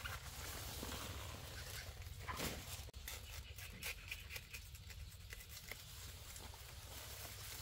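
Faint animal noises with scattered clicks over a steady low hum, with one louder sound about two and a half seconds in.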